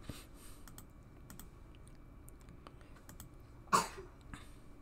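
Scattered computer mouse clicks, with one louder short sound about three-quarters of the way in.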